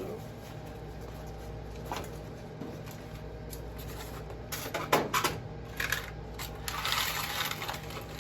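Coins clinking as they are handled: a few separate clinks, then a denser rattle of coins in the second half, over a low steady hum.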